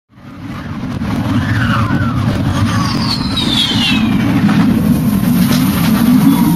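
Ride sound effect: a loud low rumble that comes up quickly out of silence and keeps building, with a falling whistle about three seconds in.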